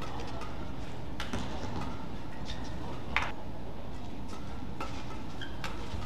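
Badminton rackets striking the shuttlecock in a fast doubles rally: a string of sharp hits, the loudest about three seconds in, over the steady hum of an indoor arena.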